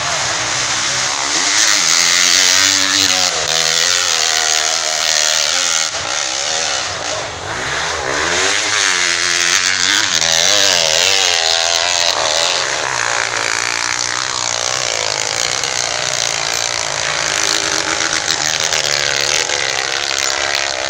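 Off-road motorcycle engine revving, its pitch rising and falling again and again over a dense hiss.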